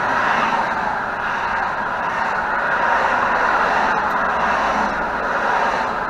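Steady noise of highway traffic passing at speed.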